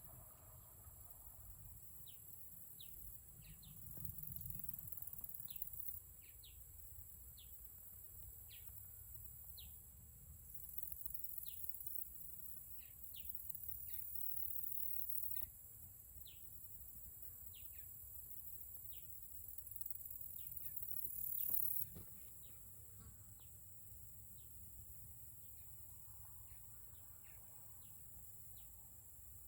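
A steady, high-pitched insect chorus, with a bird giving short, falling chirps again and again, about one every half second to second.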